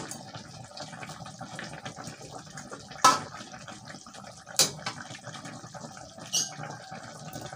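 Chicken pieces braising in spiced broth in an aluminium wok, the liquid bubbling steadily. A spatula knocks and scrapes against the wok a few times as the pieces are turned. The chicken is nearly cooked.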